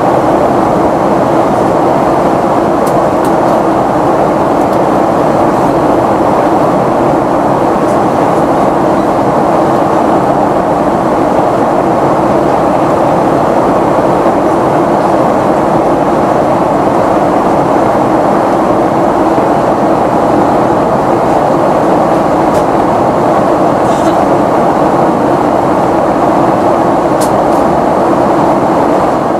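Steady cabin noise inside a Boeing 767-300ER in flight: the rush of air along the fuselage and the drone of the jet engines, with a steady low hum under it.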